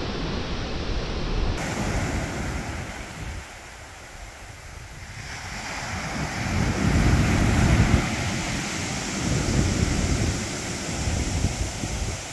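Wind buffeting the microphone over surf on a shingle beach, swelling to its loudest about seven or eight seconds in.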